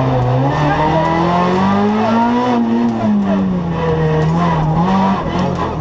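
Renault Twingo R2 rally car's four-cylinder engine heard from inside the cabin, pitch rising under acceleration to a peak about two and a half seconds in, then falling and holding lower, with a short step up near the end. Tyres squeal through the corners.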